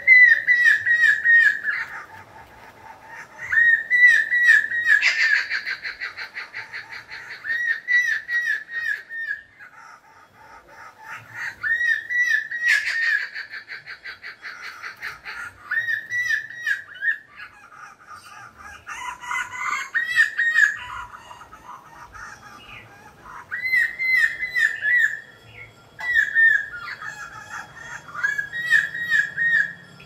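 Stork-billed kingfisher calling: short runs of three to five whistled notes, each rising and falling, repeated every three to four seconds.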